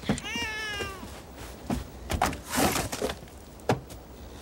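A baby crying: one wavering wail that falls in pitch over about the first second, followed by scattered knocks and rustling.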